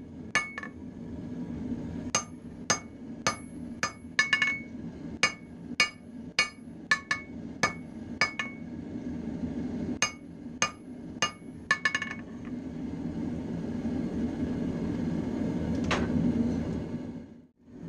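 Blacksmith's hammer striking a red-hot railroad spike on the anvil: sharp ringing blows, two or three a second in bursts with short pauses, stopping about twelve seconds in. A steady low forge roar runs under the blows and swells once the hammering stops.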